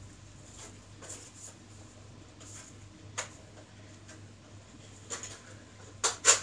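Faint rustling and light clicks of someone moving about and handling things, then a quick run of sharp clicks near the end.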